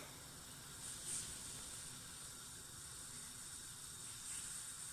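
Faint, steady hiss from a pan of water at the boil on a gas hob, swelling slightly about a second in and again near the end.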